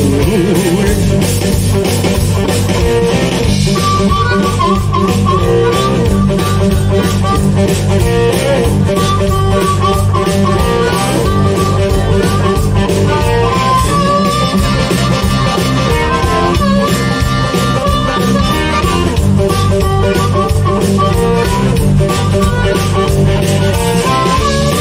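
Blues band playing an instrumental break with a steady beat: harmonica and electric guitar lead over bass and drums, with no singing.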